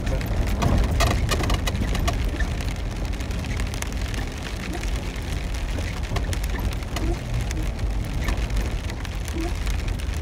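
Heard from inside a Jeep driving a wet dirt road: a steady low drone from the vehicle and its tyres, with many quick sharp patters of water spattering against the body and wheel wells, thickest in the first second or so and again later on.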